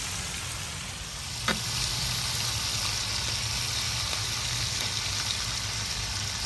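Potato strips frying in sunflower oil and lard in a pan, giving a steady sizzle. A single sharp tap comes about one and a half seconds in.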